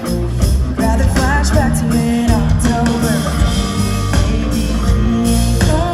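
Rock-and-roll music with a singing voice holding notes over a steady bass.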